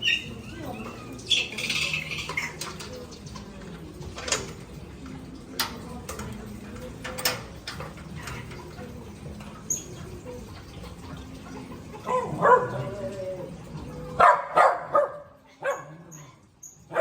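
Bird calls early on, then a dog barking several times in short, sharp barks near the end.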